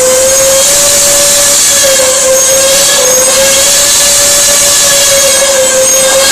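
Steam locomotive whistle blowing one long, loud note over a hiss of steam, its pitch wavering slightly.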